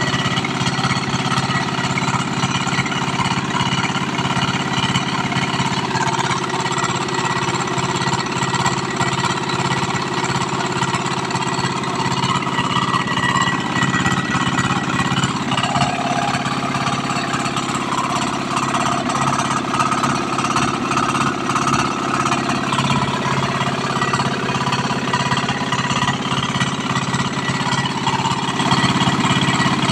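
Yanmar low-speed air-cooled diesel engine running steadily, its firing a rapid, even knocking beat.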